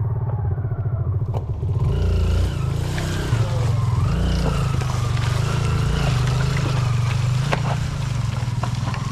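Toyota Land Cruiser engine working hard, its pitch rising and falling as it is revved, with a few sharp knocks and scrapes.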